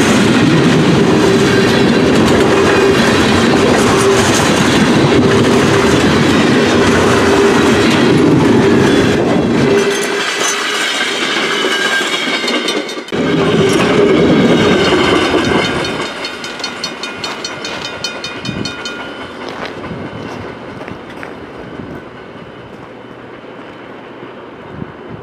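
Freight cars of a CN manifest train rolling past, steel wheels clicking and rumbling over the rail joints. About two thirds of the way in the sound begins to fade as the end of the train pulls away.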